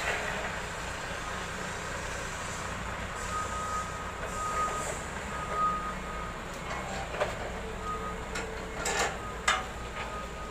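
Heavy truck engine idling steadily, with a vehicle's reversing alarm beeping on and off. A few sharp metallic clanks near the end.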